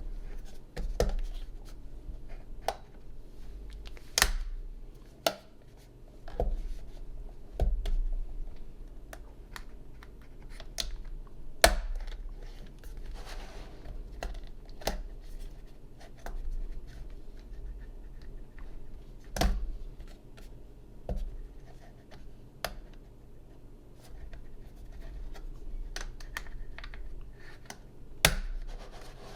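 Plastic clips of an M4 Pro Mac mini's bottom cover being pried and snapped loose: irregular sharp clicks and scraping of the prying tool against the case, over a low steady hum.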